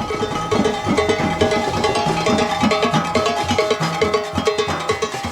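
Loud carnival soca music with a driving drum beat, cowbell-like percussion and a short repeating melodic riff.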